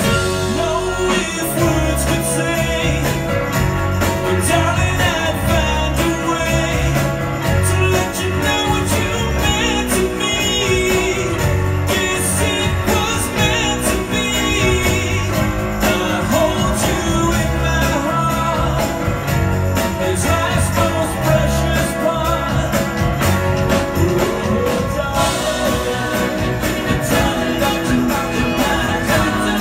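Live pop-rock band playing with a male lead vocal over drums, bass, electric guitars and keyboards, heard from the audience in a hall.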